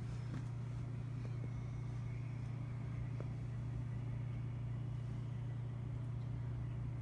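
Steady low hum with a few faint clicks and no voices.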